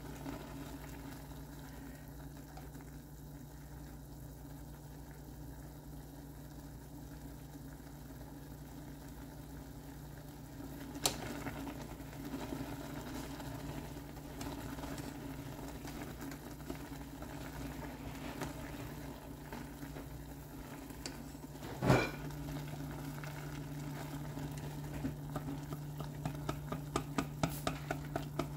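Instant noodles simmering in broth in a stainless steel saucepan, stirred with wooden chopsticks, over a steady low hum. Two sharp clicks, about eleven and twenty-two seconds in, are the chopsticks knocking the pan, and a run of light quick taps comes near the end.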